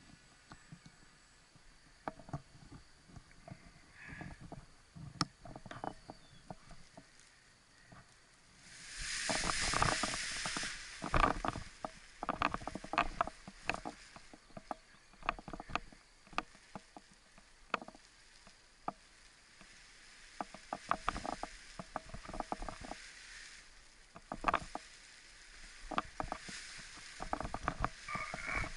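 Paraglider ground handling: scattered clicks, taps and rustles from the harness, risers and lines close to the microphone. There are two stretches of louder rushing, about nine seconds in and again about twenty seconds in, from wind on the microphone and wing fabric.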